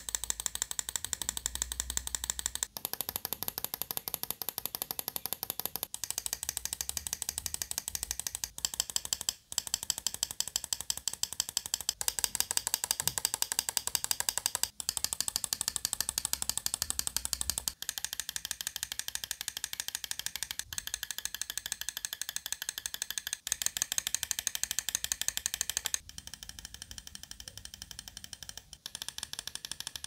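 Mouse microswitches clicking rapidly and evenly, several clicks a second, as the left button is pressed over and over. The click changes at short breaks every few seconds as different switches are heard in turn, among them a Kailh GM 2.0 and an HCNHK Black.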